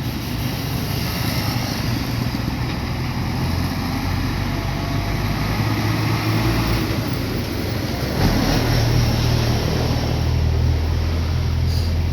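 A motor vehicle's engine running steadily, growing louder about eight seconds in.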